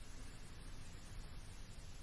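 Faint steady background hiss with a low rumble: room tone.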